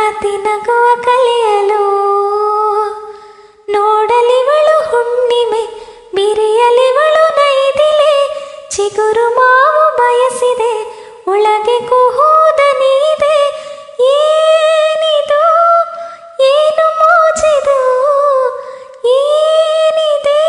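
A woman singing a melodic song solo and unaccompanied, in phrases of two to three seconds with gliding, ornamented notes and short breath pauses between them.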